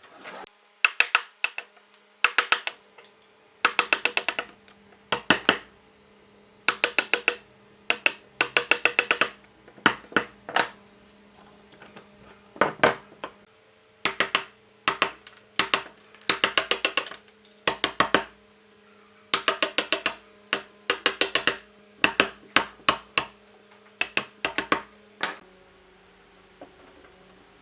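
Hammer tapping on wood in over a dozen quick bursts of several sharp blows each, with short pauses between the bursts.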